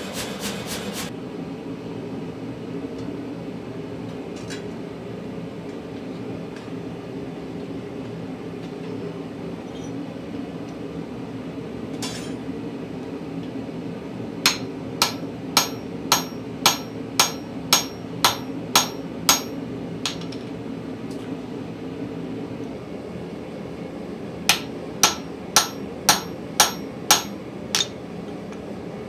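Hammer blows on steel being forged, over a steady hum: a quick burst of strikes at the start, then a run of about ten sharp, ringing strikes at about two a second, and a shorter run of about seven near the end.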